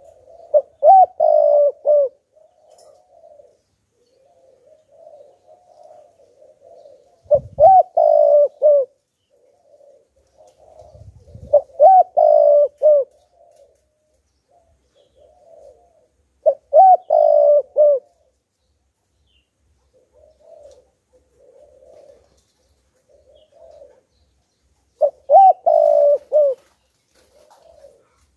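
Spotted dove cooing: five loud phrases of a few quick, falling coo notes each, about four to eight seconds apart, with softer murmured coos between them.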